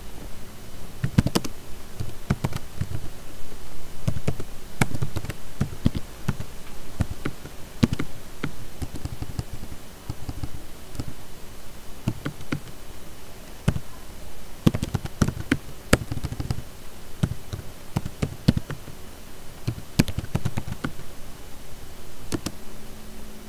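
Typing on a computer keyboard: irregular runs of key clicks and taps with short pauses between them.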